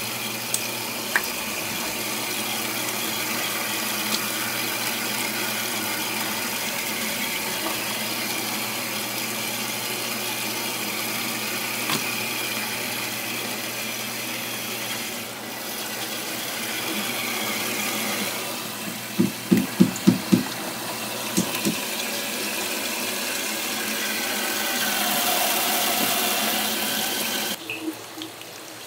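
Tap water running steadily into a sink, with a low steady hum underneath. A little past the middle comes a quick run of about seven knocks, and the running water cuts off shortly before the end.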